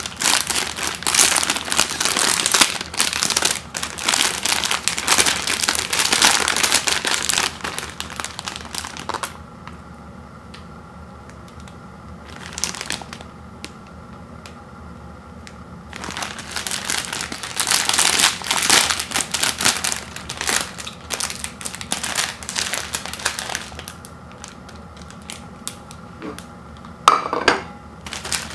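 Plastic instant-noodle packaging crinkling and crumpling as it is handled, in long bursts with quieter pauses between.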